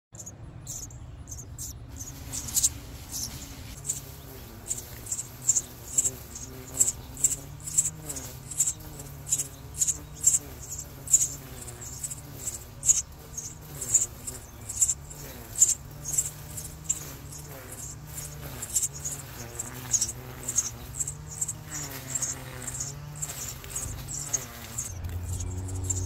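Sparrow nestlings begging for food: short, high, sharp chirps, about two a second, while being fed at the nest-box hole. Soft background music plays underneath.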